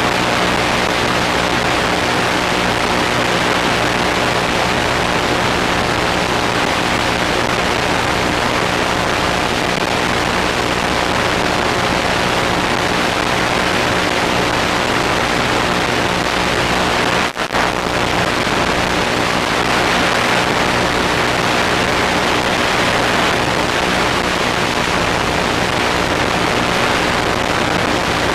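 Steady loud static hiss with a low buzz of many steady hum tones under it, broken by a brief dropout about 17 seconds in. This is radio noise on the analog FPV video link's audio channel, recorded by the DV-701 monitor's built-in DVR.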